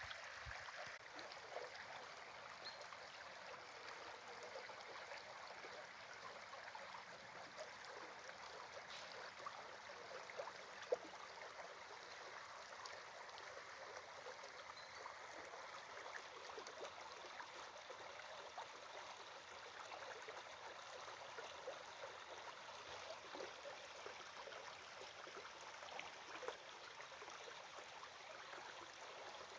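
Faint, steady running water of a small stream, with a single sharp click about eleven seconds in.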